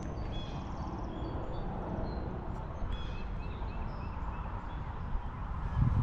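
Steady low rumble of wind on the microphone, with small birds giving a series of short, high chirps over the first half or so.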